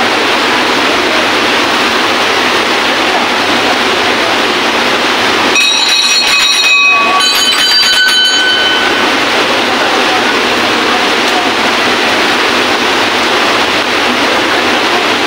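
Steady rush of flowing water. A small hand bell rings with a few strikes about halfway through, its high tones ringing on for a second or two.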